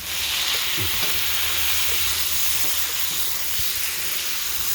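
Beef patties and thinly sliced onions sizzling loudly on a hot cast iron griddle. The sizzle surges right at the start as the onion burger is pressed down harder, then holds steady.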